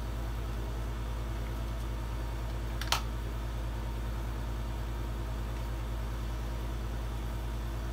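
Steady low hum of a running air conditioner, with one sharp click of kitchenware about three seconds in.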